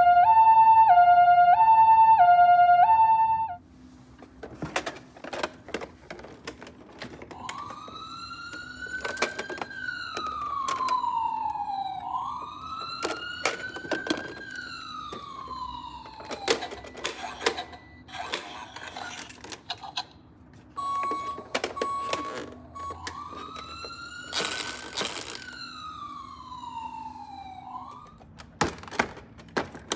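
A loud two-tone hi-lo siren switches back and forth for the first few seconds and then stops. Then come small clicks and clatters of toy cars, and a toy emergency-vehicle siren wailing slowly up and down, about five seconds a cycle, three times, with a short steady beep partway through.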